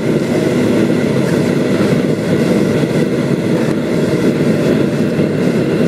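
Engine of the vehicle carrying the camera, running steadily with a loud, even rumble and no pauses or changes.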